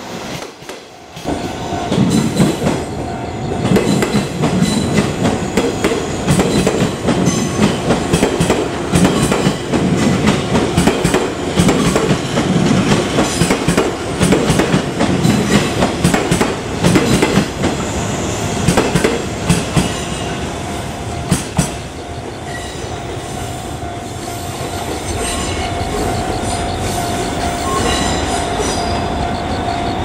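Electric train, the 485 series EMU, rolling slowly through station pointwork: dense, irregular clicking of wheels over rail joints and switches above a low rumble. After about twenty seconds the clicking thins out into a steadier rumble with a steady whine.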